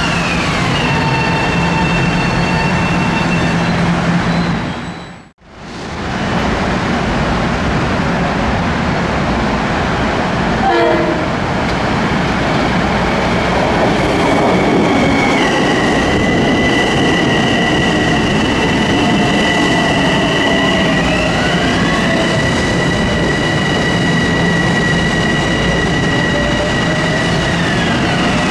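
Metro-North commuter train running past, with the rumble of the cars on the rails under a high whine of electric traction gear. The whine holds steady tones, and some of them glide down near the start and up again later. The sound drops out abruptly for a moment about five seconds in.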